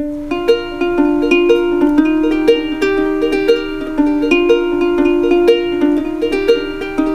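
Light background music on a plucked string instrument, with quick notes over a held low tone at a steady rhythm.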